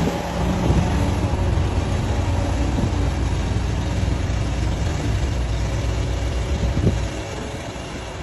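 Liebherr crawler excavator's diesel engine running steadily as a low drone while the arm and bucket work, with a brief knock about seven seconds in, after which the engine grows quieter.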